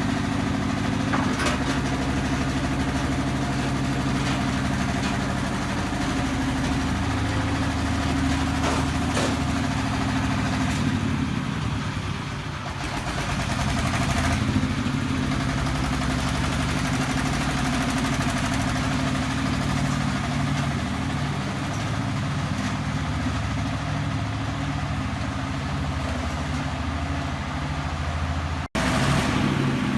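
Engine of a self-loading concrete mixer running steadily, its note dipping and shifting about twelve seconds in. There is an abrupt cut near the end.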